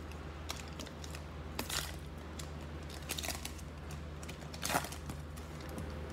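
Basketball trading-card pack wrapper being torn open and crinkled by hand, in a few short crackling bursts, the loudest about three-quarters of the way in.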